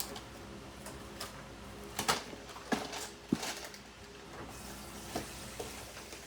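Food sizzling in a frying pan, with a few sharp clicks and scrapes of a utensil stirring it.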